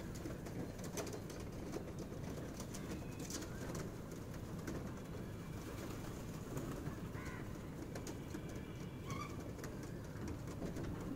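A flock of feral pigeons cooing, with wings flapping now and then and a few short higher chirps.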